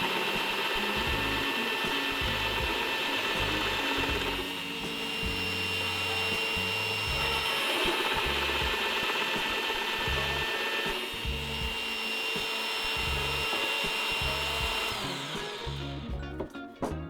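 Bosch PBD 40 bench drill press running at about 500 RPM with a large Forstner bit boring into wood: a steady motor whine over the rasp of the cut. The sound dies away near the end as the drill is stopped.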